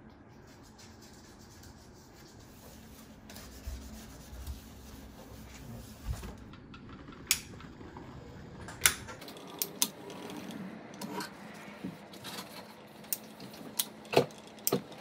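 Hand caulking gun laying a bead of sealant, with the joint wiped by a rag: soft rubbing and handling at first, then scattered sharp clicks and knocks from about halfway on, a few of them loud.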